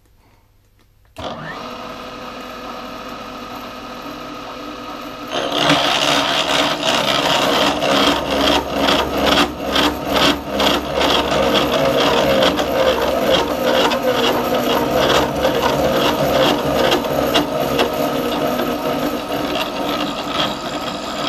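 A vertical milling machine starts about a second in and runs steadily. About four seconds later its 3/16 in (4.7 mm) disc milling cutter begins cutting a slot into a workpiece turned on a dividing head, a loud cutting noise with a rapid, uneven chatter that lasts to the end.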